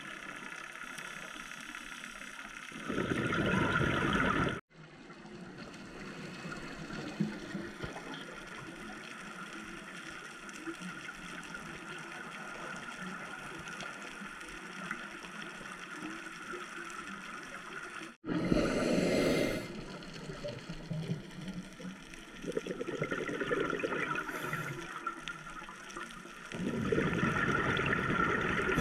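Underwater sound of a scuba diver's regulator: exhaled breath bubbling out in loud rushes of a second or two, four times, over a steady underwater hiss.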